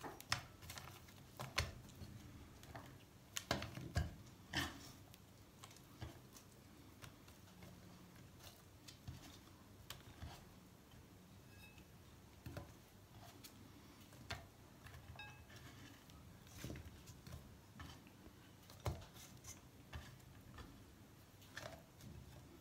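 Quiet, scattered pats and light taps of quince peel pieces being laid by hand into an enamelled pot. The taps come close together for the first few seconds, then more sparsely.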